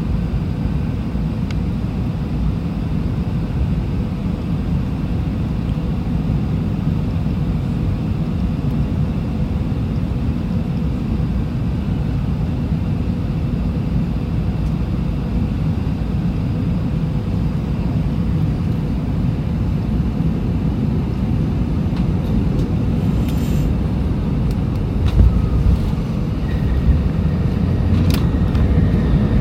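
Steady low rumble of a jet airliner's cabin in flight, growing a little louder near the end, with a few light clicks and a short thump.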